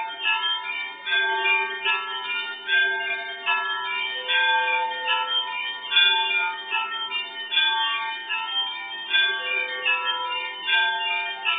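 Russian Orthodox monastery church bells ringing: several bells of different pitches struck in quick, overlapping succession, each note ringing on.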